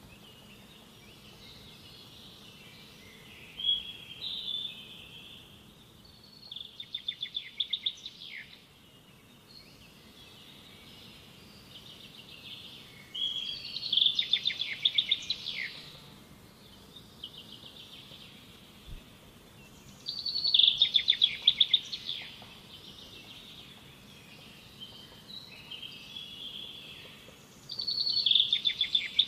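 A songbird singing, with a high-pitched phrase of rapid repeated notes about every six to seven seconds, five phrases in all.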